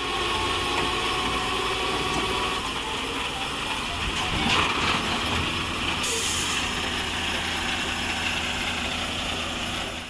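Heavy truck engine running steadily during a tow-truck recovery of an overturned dump truck. A higher hiss joins about six seconds in.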